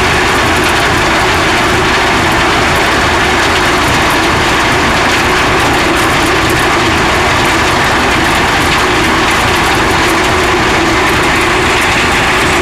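Heavy farm machinery running steadily under a constant engine drone, from the corn harvesting or shelling equipment.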